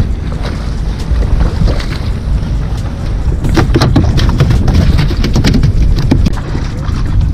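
Wind buffeting the microphone on a small inflatable boat, with a flurry of sharp knocks and clatter from about halfway through as a snoek is hauled over the side and thrashes aboard.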